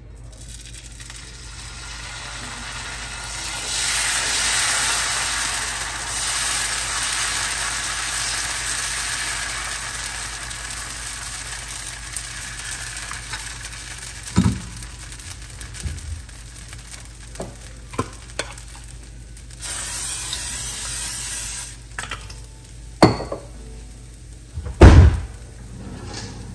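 Dosa batter sizzling on a hot cast iron dosa tawa as it is poured, the sizzle swelling over the first few seconds and then dying away. Later come a few knocks, another short burst of sizzling, and a sharp knock near the end, the loudest sound.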